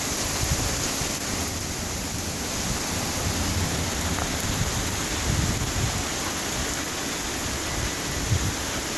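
Heavy rain pouring down in a steady, dense hiss: a summer downpour.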